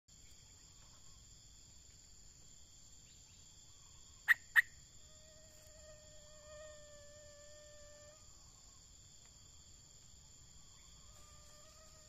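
Steady high drone of insects, broken about four seconds in by two sharp, loud clicks in quick succession. Then comes a long, held call with a slight waver, lasting nearly three seconds, and a fainter one near the end, in the manner of a distant fowl crowing.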